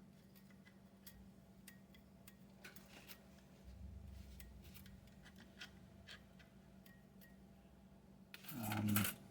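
Small metal fare-box parts being handled while a roll pin is fitted: scattered light clicks, taps and scraping. Near the end there is one short, louder sound with a low pitch.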